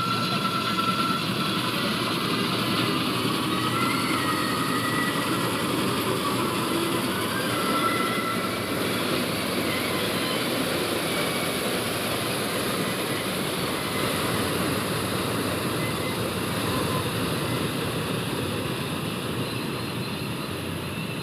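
Heavy farm machinery running steadily: a dense, even mechanical din from a combine harvester or tractor working with paddy, with faint whining tones over it.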